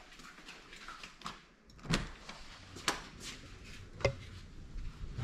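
A front door and a barred metal security screen door being unlatched and opened: three sharp clicks of the latches and handle, about two, three and four seconds in.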